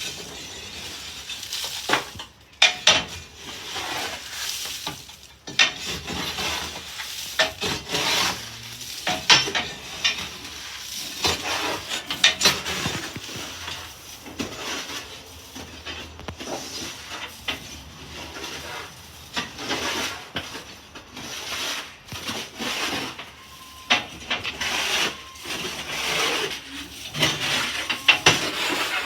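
Fowler BB1 steam ploughing engine on the move: irregular metallic clanking and rattling over a steady hiss.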